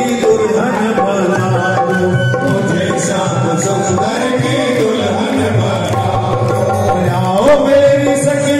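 A man singing a devotional bhajan over a loudspeaker, accompanied by tabla and steady sustained instrumental notes, with his voice sliding up in pitch near the end.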